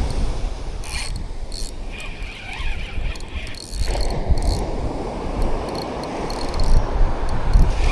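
A fishing reel being cranked to bring in line, a mechanical whirring that comes in stop-start spurts, over wind and surf rumble.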